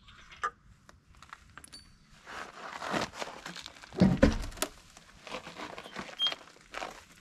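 Metal clicks and scrapes as the lug nuts come off a jacked-up truck's front wheel, then a heavy thump about four seconds in as the big off-road wheel and tire are pulled off the hub, with further scuffs and knocks as it is wrestled free.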